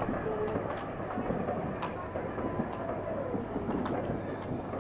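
Distant fireworks: scattered sharp pops and crackles over a continuous low rumble of many fireworks going off at once.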